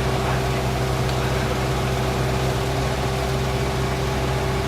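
Engine idling steadily: an even, unchanging low hum with a constant pitch.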